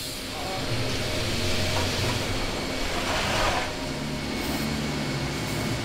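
Aerosol lubricant hissing through a straw nozzle onto a stuck steel hinge for about three seconds, over a steady low workshop hum.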